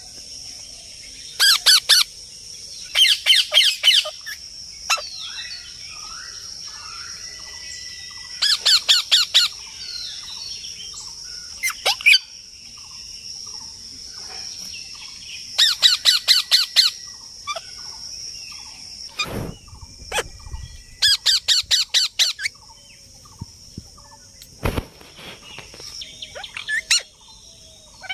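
Parrots squawking in short bursts of rapid, repeated harsh calls, about six bursts, with softer chirps in between and a steady high-pitched buzz behind. Two sharp knocks come about two-thirds of the way through.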